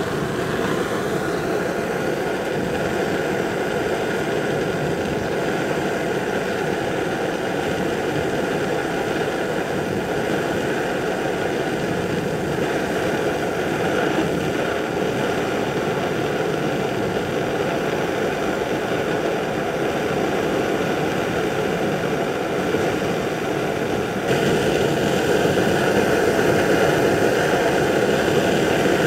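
Brass Primus-type kerosene pressure stove burning with a steady roaring hiss while heating water, a little louder for the last few seconds.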